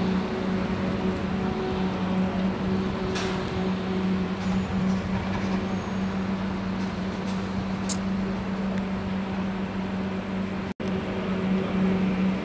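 An engine running at a steady speed: a constant low hum over a bed of noise, with a couple of faint clicks. The sound cuts out for an instant near the end.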